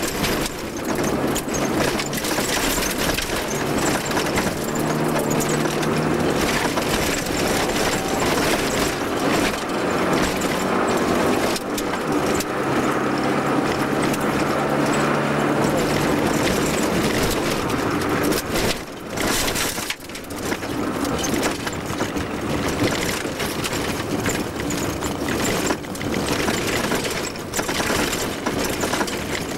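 Vauxhall Nova 1.3SR Group N rally car's four-cylinder petrol engine running hard under load, heard from inside the cabin, its pitch holding at high revs between gear changes. A loud rush of tyre and road noise runs underneath, and the sound drops away briefly about two-thirds of the way through.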